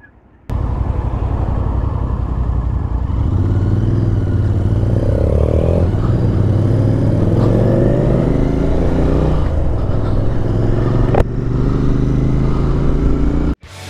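Motorcycle engines under way, from the Royal Enfield Interceptor 650 carrying the camera, with the BMW R nineT Scrambler accelerating ahead, against a steady rush of wind. The sound starts suddenly about half a second in. The engine note rises about five seconds in, and the sound cuts off suddenly just before the end.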